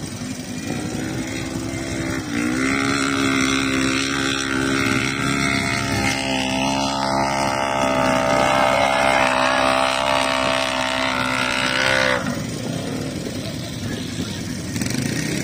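Dune buggy engine running hard at steady high revs as it drives across the sand, starting about two seconds in and cutting off sharply near the end, over the lower running of idling quad ATV engines.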